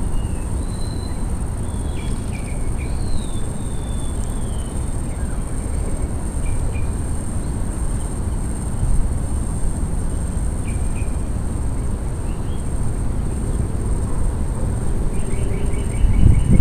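Small birds chirping now and then, with a steady high-pitched insect drone, over a low rumble of wind on the microphone. Near the end comes a fast, even trill.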